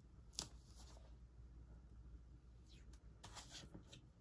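Quiet handling of heat tape and sublimation transfer paper: a single sharp click about half a second in, then a few soft paper-and-tape crackles around three seconds in.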